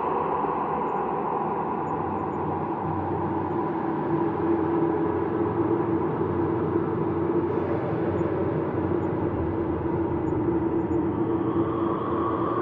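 Steady ambient space drone: layered sustained hum tones over a rumbling hiss, slowly shifting, with a higher tone swelling in near the end.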